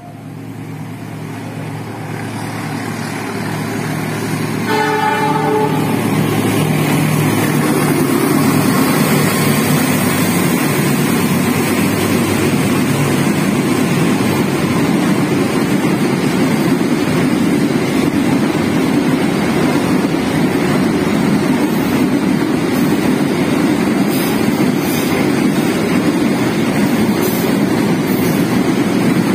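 Diesel-hauled freight train passing close by: a steady locomotive engine hum, and a short horn blast about five seconds in. The sound grows louder over the first several seconds into a steady rumble of box and container wagons rolling over the rails.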